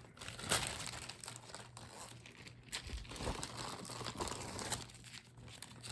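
Small plastic jewelry bag crinkling and rustling in the hands as a piece is handled and unwrapped, with sharp crackles throughout.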